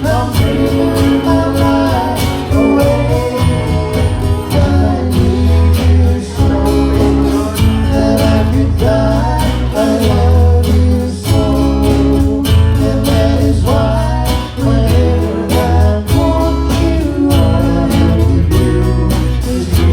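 Live band playing a song: guitar over bass and a steady drum beat, with a singing voice.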